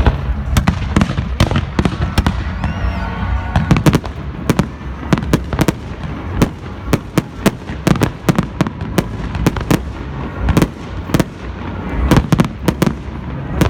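Fireworks and firecrackers going off in rapid, irregular succession, several sharp bangs a second over a constant low rumble of more distant explosions.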